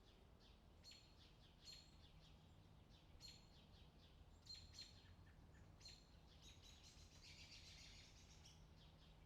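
Faint bird chirps: short high calls repeated roughly once a second, running into a longer twittering stretch about two-thirds of the way in, over a low steady hum.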